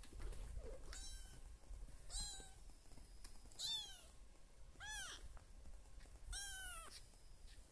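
Young kitten mewing: five short, high calls, each rising and then falling in pitch, spaced about a second or so apart.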